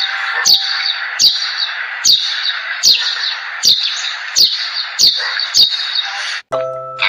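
A bird calling over and over, each call a sharp downward sweep, about one call a second, over a steady hiss of background noise. It cuts off abruptly near the end.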